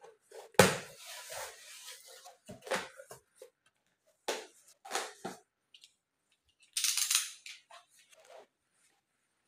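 Cardboard box being opened by hand: a sharp knock about half a second in, then scraping and rustling of the flaps with scattered clicks, and a louder rasping rustle around seven seconds in.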